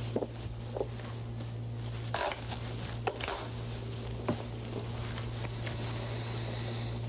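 A hard briefcase being handled and opened, giving a few short clicks and knocks, over a steady low hum.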